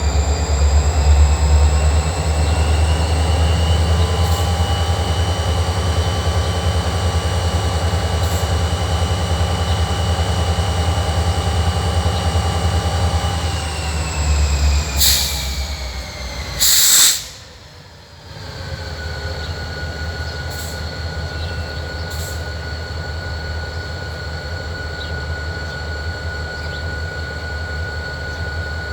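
EMD SD40-2 diesel locomotive's turbocharged 16-cylinder engine working hard with a deep rumble and a high whine that rises in pitch over the first few seconds. About halfway the whine falls in pitch and the engine sound drops away after two short hissing bursts, leaving a quieter rolling rumble with a steady high wheel squeal.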